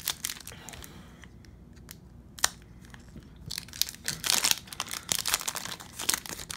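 Foil wrapper of a hockey card pack crinkling and tearing as it is opened by hand. It gives scattered sharp crackles at first, then denser crinkling in the second half.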